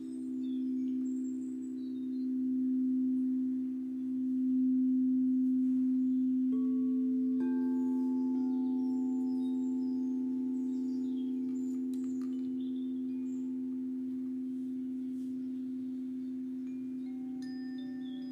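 Singing bowl ringing with a deep, sustained hum and overtones, swelling and fading in slow waves. About four and a half seconds in it swells louder, then fades slowly. Higher bell-like chime tones join in a few seconds later.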